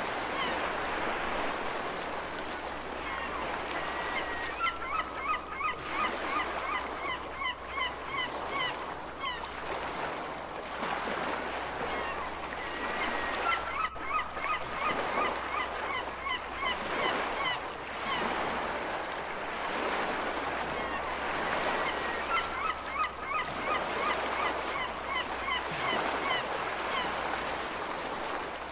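Steady wash of ocean waves with gulls calling, in three bouts of quick, repeated short calls.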